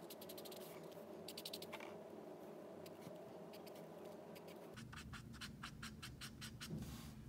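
Faint scratching of an Ohuhu alcohol marker's felt nib on sketchbook paper, shading in quick back-and-forth strokes. The strokes come in three runs, two short ones near the start and a longer one in the second half.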